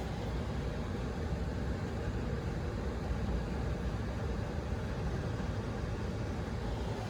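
Steady low rumble and rush of a running central air-conditioning system, with no starts, stops or knocks.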